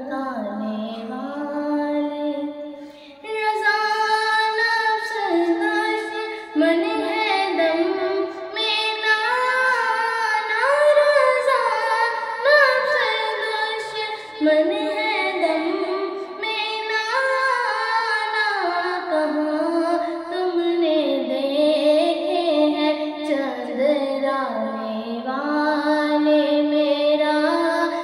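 A girl reciting an Urdu naat in a high singing voice, holding long notes that slide and waver between pitches, with a short breath pause about three seconds in.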